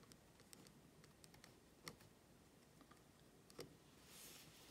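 Faint pen writing on paper: light taps and clicks of the pen tip, two of them a little sharper, and a brief soft scratch of a pen stroke near the end.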